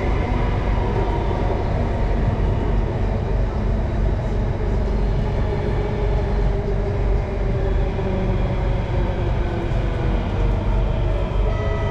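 Singapore MRT Circle Line train heard from inside the carriage while running through a tunnel: a steady rumble of wheels on rail and running gear. A faint motor whine falls slightly in pitch partway through.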